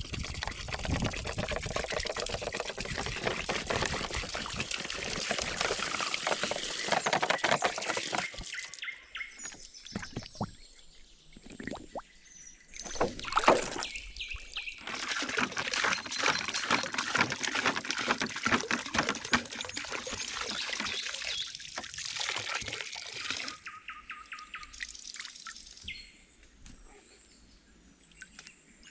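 Water pouring and splashing in two long runs of about eight seconds each, with a pause between them and a single louder splash or knock in the pause.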